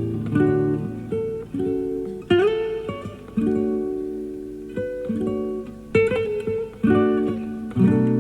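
Classical guitar played live: plucked single notes and chords that ring and die away, with a slide up into a high note about two seconds in. The music comes from a cassette tape recorded off an FM radio broadcast.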